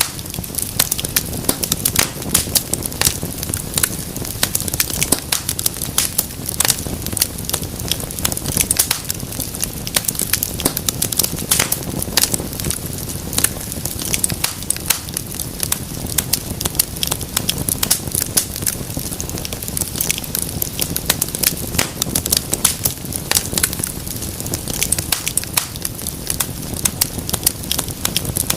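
Wood fire crackling steadily, with many sharp, irregular pops and snaps over a low, even rush of flame.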